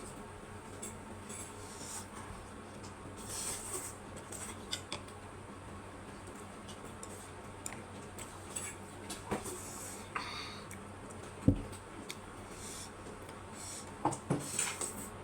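Noodle-eating sounds: scattered clicks of utensils against a plate or bowl, a few brief noisy smears between them, and one sharp knock about eleven seconds in.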